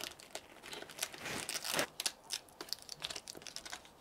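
Thin black plastic adhesive sheet crinkling and rustling as it is handled and pressed onto the back of a laptop keyboard, with irregular small crackles and clicks.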